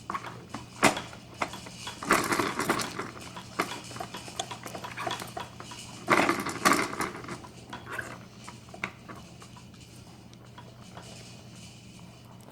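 Plastic toys on a baby's Jumperoo activity jumper clicking and clattering as they are knocked about, with two louder clattering flurries, one about two seconds in and one about six seconds in.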